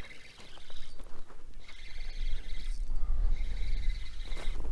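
Spinning reel being cranked in short bursts of about a second with brief pauses, a steady high whir, as in a jig step retrieve; low wind rumble on the microphone underneath.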